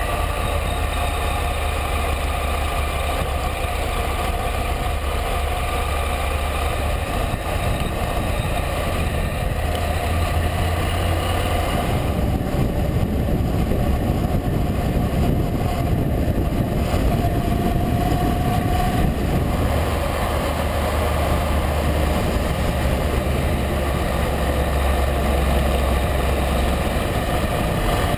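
Honda NC700X's 670 cc parallel-twin engine running steadily as the motorcycle rides along, recorded on the bike with wind noise over the microphones. The low rumble of wind grows heavier through the middle stretch.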